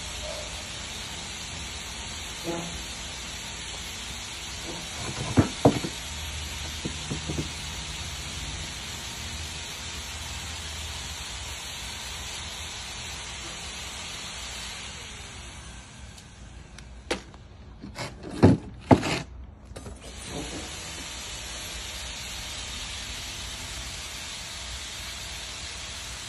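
A steady hiss with a few sharp knocks of bricks and hand tools being handled on a plywood workbench. The loudest knocks come as a close pair about five seconds in and as a group of three around eighteen to nineteen seconds in.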